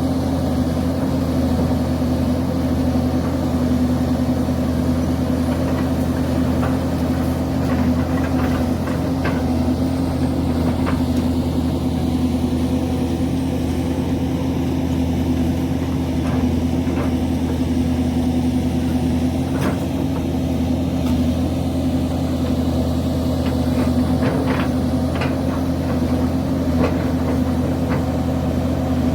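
Link-Belt excavator's diesel engine running steadily at an even pitch, with scattered light clicks and knocks over it.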